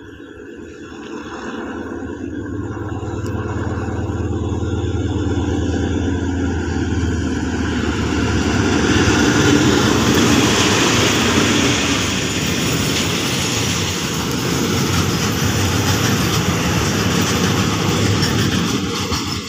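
Diesel-hauled container freight train passing close by: the locomotive's engine drone grows louder as it approaches, peaks as it passes about ten seconds in, then the container flat wagons roll by with steady wheel-on-rail noise.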